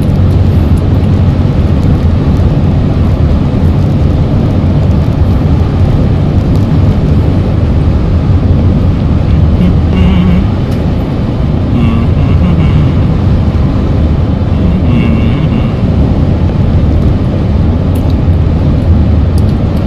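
Steady low drone of tyre and engine noise inside a car cruising at freeway speed.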